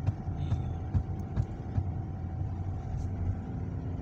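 Inside a moving car: steady engine and road rumble with a faint steady whine, and a few light clicks scattered through it.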